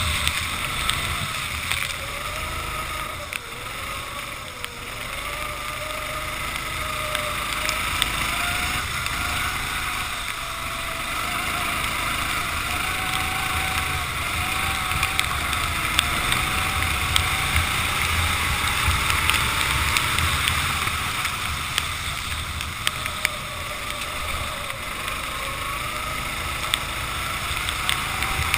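Racing kart engine running at race pace, its pitch rising and falling again and again as the kart accelerates and slows through corners, over a steady hiss of wind and spray from the wet track.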